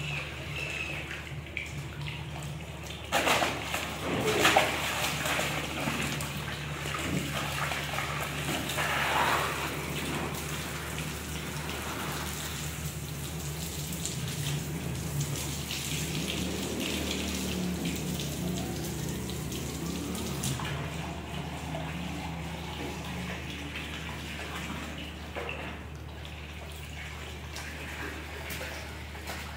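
Water running from a garden hose, splashing onto a tiled floor and into a paddling pool, steady throughout, with a few louder bursts in the first ten seconds.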